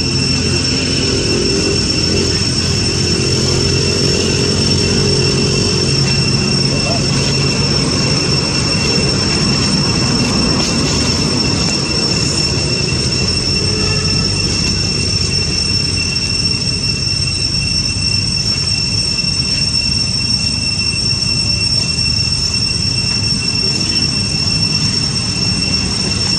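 A steady high-pitched whine that holds one pitch without a break, over a low rumble.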